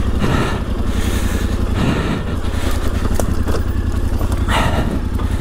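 Yamaha Ténéré 700's 689 cc parallel-twin engine running at low, fairly steady revs while the bike is ridden off-road, with a few brief surges of noise.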